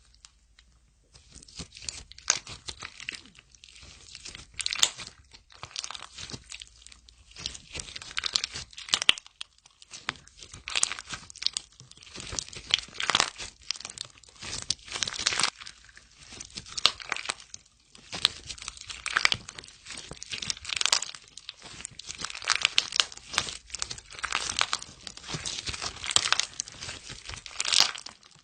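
Slime being squeezed and worked by hand, giving dense clicking and popping in irregular bursts, about one a second, that begin about a second in.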